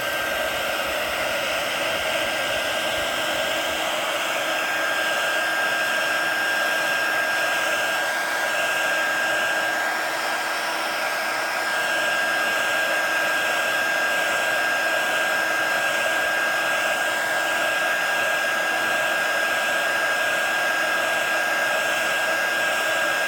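Heat gun running steadily: a rushing blow of air with a steady high whine. It is heating the glass of a Samsung Galaxy phone to soften the glue under the screen.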